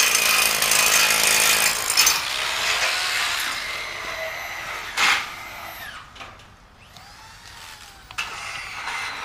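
A power tool runs loudly on the metal carport frame for about two seconds, then its sound fades away as it winds down. A single sharp knock comes about five seconds in.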